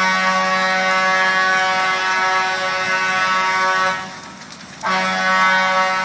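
An air horn sounding two long, steady single-pitch blasts. The first lasts about four seconds, then after a short break the second starts and is still going at the end.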